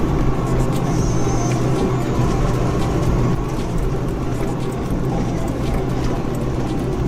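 Diesel engine of a heavy forestry machine running steadily under load, with scattered knocks and clicks.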